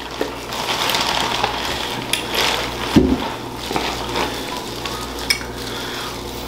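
Plastic seafood-boil bags and plastic gloves crinkling continuously as hands dig through crab legs, with a few sharper snaps of shell being broken.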